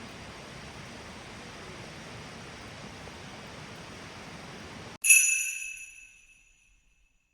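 A steady hiss of background ambience that cuts off abruptly, then a single bright chime struck once, its ringing tones fading away over about a second and a half: an edited-in transition sound.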